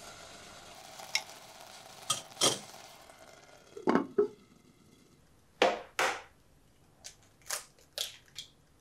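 Kitchen handling sounds: light clinks, then clunks about four seconds in as the heavy ceramic lid is set on a clay donabe rice pot, followed by sharp knocks and small cracks as eggs are broken into a glass measuring cup. A faint steady hiss underlies the first few seconds.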